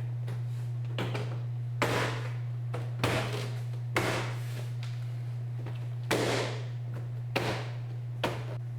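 Interior door panel of a 2003 Chevy Monte Carlo being struck so its retaining clips snap into the door: about seven dull knocks at uneven intervals.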